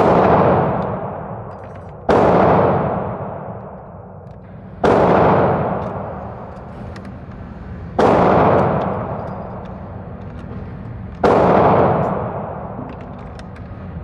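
Five gunshots on a shooting range, about two to three seconds apart, each ringing out and fading over a couple of seconds.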